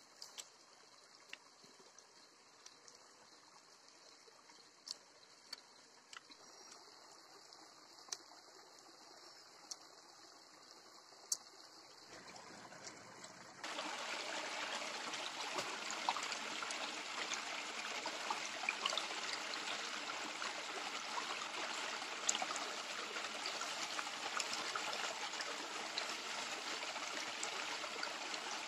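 Shallow stream running over rocks: a steady rush of water that comes in abruptly about halfway through. Before that only a faint high hiss with scattered sharp clicks.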